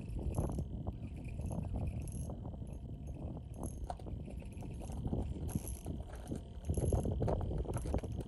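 Wind buffeting the microphone in an uneven low rumble, with scattered light clicks and rattles of small fishing tackle being handled.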